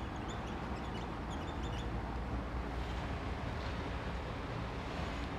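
Marker squeaking on a whiteboard in short strokes during the first two seconds as words are written, then a steady low background hum.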